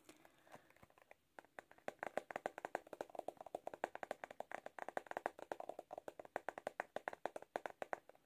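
Fingertips and nails flicking across the flexible plastic bristles of a Tangle Teezer detangling hairbrush, a fast, even run of crisp clicks, about ten a second, starting about a second and a half in.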